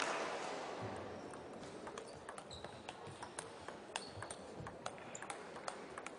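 Table tennis rally: the ball clicking sharply and irregularly off the table and the rackets, a stroke or bounce every fraction of a second. A wash of noise fades out during the first second.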